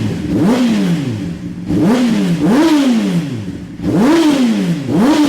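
Motorcycle engine of a 600 cc sport bike (likely a Honda CBR600RR) fitted with an aftermarket exhaust, revved in a series of about six quick throttle blips, each rising in pitch and falling back. There is a short lull a little past halfway.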